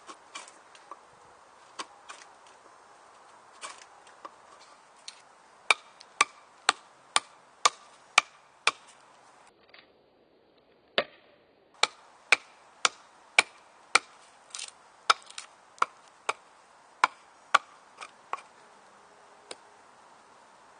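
Full-tang Finnish Jääkäripuukko knife chopping into a stick laid on a tree stump: a run of sharp wooden chops about two a second. These come after a few quieter scattered knocks from carving cuts, with a short break in the middle.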